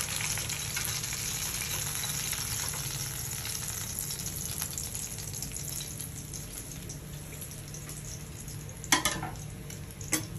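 Oil sizzling steadily around masala-coated whole fish shallow-frying in a kadai, fading a little as it goes on. Two sharp knocks near the end.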